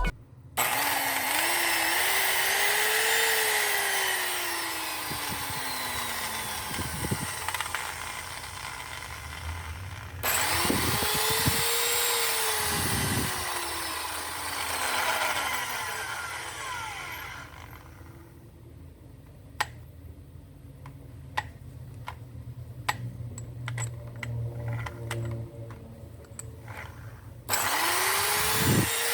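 Bosch electric drill running in three bursts, each starting suddenly, its motor pitch rising and then falling away. Between the second and third burst there is a quieter stretch with scattered clicks.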